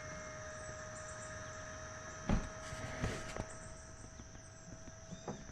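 Electric air pump running steadily with a whine after the inflatable is already full, with a few dull thumps about two and three seconds in.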